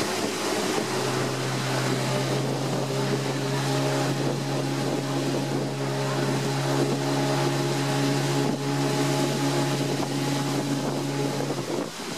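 Motor of a small metal river boat running at speed, with water rushing along the hull and wind on the microphone. The engine note steps up about a second in and drops back near the end.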